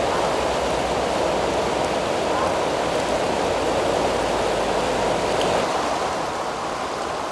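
Steady rushing of a swollen, flooding river, with a low rumble underneath that drops away about five and a half seconds in.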